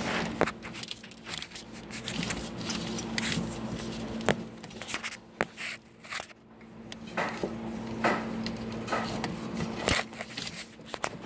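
Scattered clicks, scrapes and rubbing as hands work a quick-disconnect tool on an AC line fitting, over a steady low hum.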